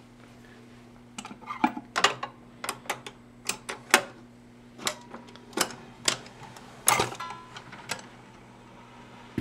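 Webcor portable record changer being loaded by hand: a record clicking and knocking against the spindle and platter as it is set in place, then a louder clunk about seven seconds in as the record goes down onto the platter and the mechanism cycles. A steady low hum runs underneath.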